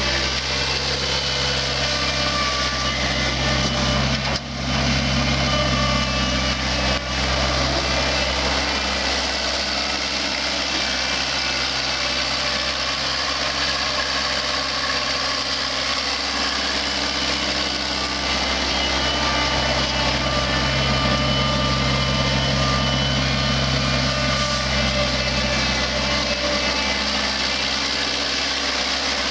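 1983 Owatonna Mustang 445 skid steer's engine running steadily, with two brief drops in the sound about four and seven seconds in.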